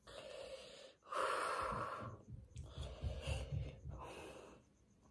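A woman breathing hard through her mouth from the burn of extremely hot chili: a string of heavy, gasping breaths, the longest and loudest about a second in, then several shorter puffs.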